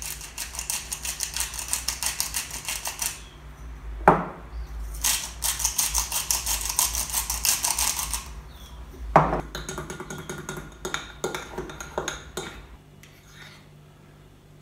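Hand-twisted salt and pepper grinders ratcheting over a bowl in two runs of rapid clicking, each followed by a single knock. Lighter scattered clicks follow, then it goes quiet near the end.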